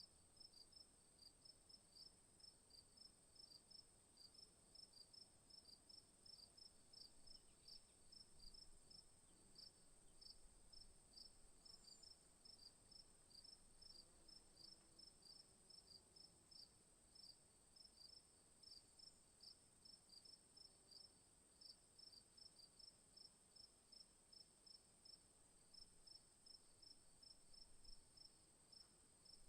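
Faint cricket chirping: short, regular chirps about two to three a second, over a continuous high-pitched tone.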